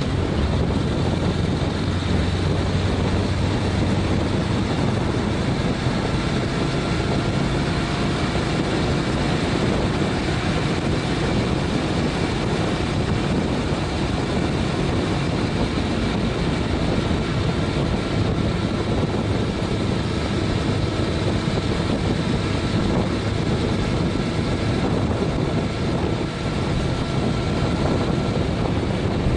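Honda CTX700N parallel-twin motorcycle engine running under way, with steady wind noise rushing over the handlebar-mounted action camera's microphone as the bike speeds up from about 20 to 35 mph.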